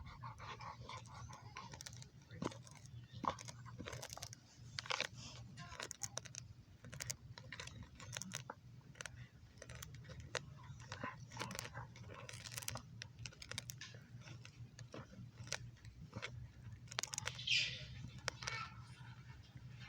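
Dog chewing on a coconut: irregular crunching and cracking as its teeth work the husk and shell.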